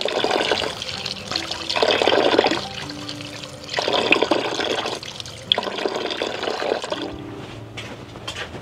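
Water running in four bursts of about a second each, over soft background music.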